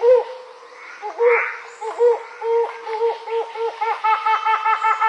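A bird giving a run of laugh-like pitched calls, slow and uneven at first, then speeding up into a quick steady series of about five notes a second near the end.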